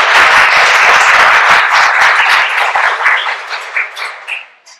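Audience applauding. The applause thins out into a few scattered claps about halfway through and stops just before the end.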